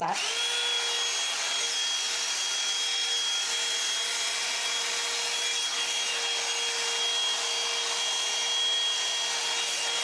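Revlon One-Step hot-air brush dryer running steadily while it is worked through the hair to smooth out a few frizzy spots. Its fan motor gives an even rush of air with a steady hum and a thin high whine. It spins up with a short rising whine right at the start.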